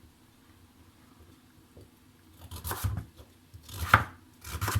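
Kitchen knife cutting carrots on a chopping board: three short cuts in the second half, the loudest near the end.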